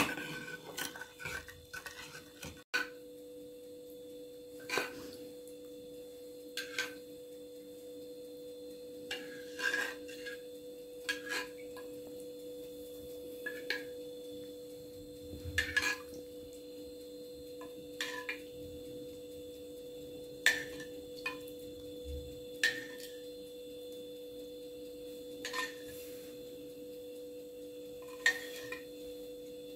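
Metal spoon clinking against a terracotta bowl and a metal baking tray as sauce is stirred and spooned over the food: scattered light taps every second or two. A steady faint hum runs underneath.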